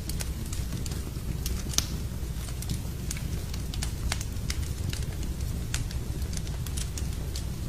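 Wood fire burning in a fireplace, crackling with sharp irregular pops over a steady low rumble.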